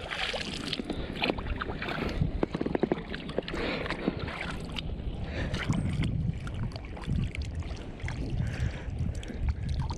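Small waves lapping and slapping against an inflatable float tube, with a low wind rumble on the microphone. Short splashes and knocks come thickest in the first few seconds.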